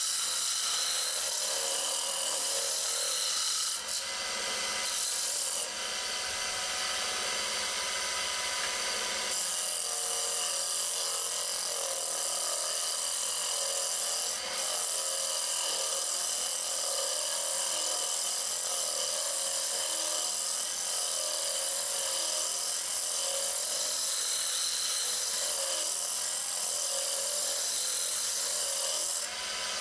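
Draper variable-speed mini wood lathe running, with sandpaper held by hand against the spinning wood cylinder: a steady sanding hiss over the lathe motor's whine.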